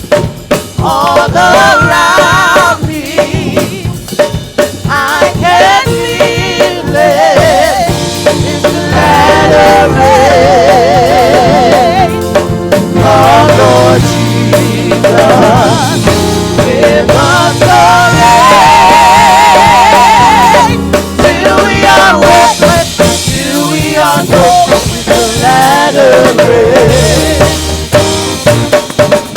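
Gospel praise band playing: a lead singer with strong vibrato over drum kit with snare and rimshots and held bass notes.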